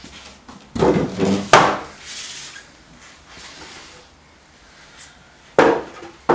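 Heavy wooden picnic table knocking and thudding as it is turned over and set down on its legs, a burst of several knocks about a second in. Near the end, more sharp wooden knocks as a wooden sawhorse is lifted and bumped.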